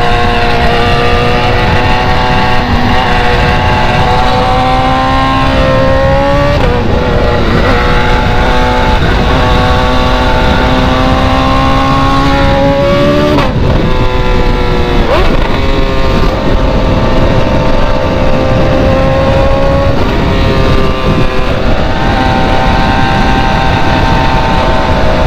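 Loud BMW engine through an open exhaust, pulling under load. Its drone climbs slowly in pitch, then drops sharply three times as the car shifts up through the gears.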